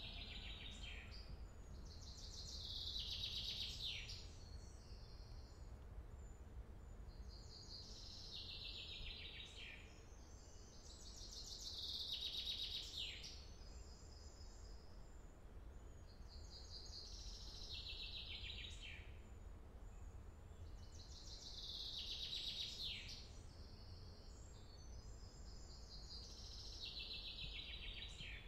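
Faint forest ambience with a bird singing high, fluttering phrases that fall in pitch, repeated in pairs every few seconds. A steady low rumble runs underneath.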